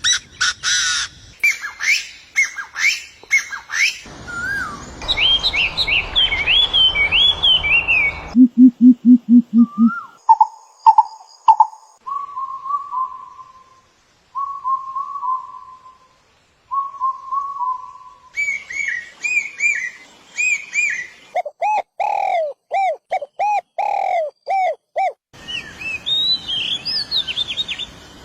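A series of different birds' songs and calls, one after another in short clips with abrupt changes: chirps and whistled phrases, a brief run of low rapid pulses, short repeated notes, and repeated swooping notes.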